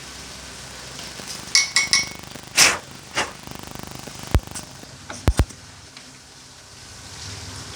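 Small metal tools and parts clinking and tapping: a handful of separate sharp clicks spread over a few seconds, with a quick pair about five seconds in.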